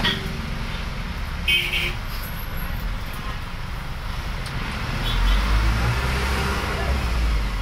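Isuzu NQR minibus's diesel engine and road noise heard from inside the cabin while it drives in traffic. The engine gets louder about five seconds in as it pulls harder. A short high beep sounds about a second and a half in.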